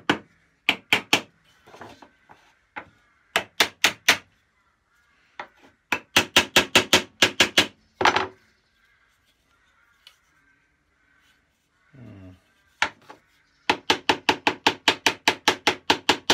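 Small hammer tapping tight saw screws through the wooden handle of an old dovetail saw, in quick runs of light taps with pauses between, the longest run about a dozen taps.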